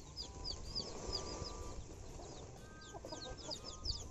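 Kampung chickens clucking, with short high chirps repeating two or three times a second, and a woven plastic feed sack rustling as it is handled.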